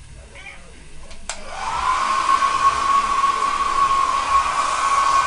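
Handheld hair dryer switched on about a second in: its motor whine rises quickly and then settles into a steady high hum over a loud rush of blown air.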